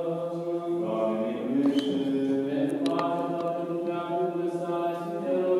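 Orthodox monks chanting a liturgical service with men's voices in long held notes: one low note stays steady beneath a melody that shifts pitch. A few faint clicks fall in the middle.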